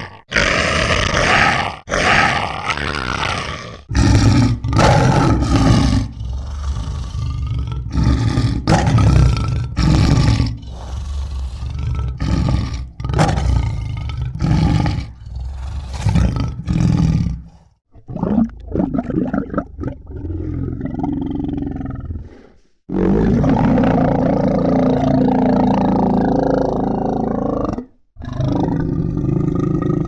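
Monster vocal sound effects: a string of roars and growls one after another, short ones in quick succession at first, then a few held for several seconds.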